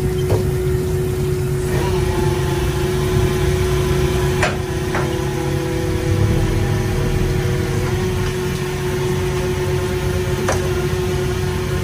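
Factory machinery running with a steady hum over a low rumble, and a few sharp clacks at irregular intervals.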